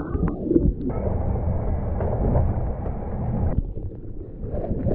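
Wind buffeting the camera microphone aboard a small sailboat in rough water, a dense low rumble, with a steady hiss rising over it from about a second in to past the middle.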